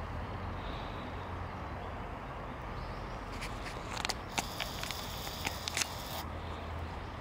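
Outdoor background noise with a steady low rumble, as of wind on the microphone. A few light clicks and ticks come about halfway through.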